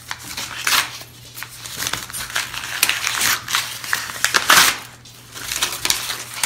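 A paper mailer envelope being torn open by hand: irregular ripping and crinkling in several bursts, the loudest a little past four seconds in.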